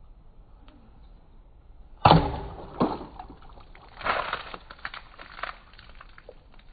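A sudden sharp hit as a full plastic water bottle is struck and knocked over, followed by water splashing and spilling with a few smaller knocks and clatters.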